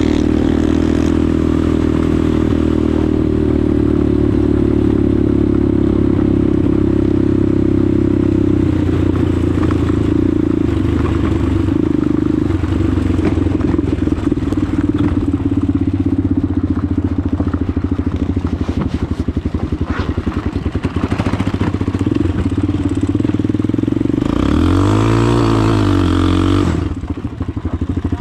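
Shineray 250cc STXE motorcycle engine running steadily, with one throttle rev near the end whose pitch rises and falls back.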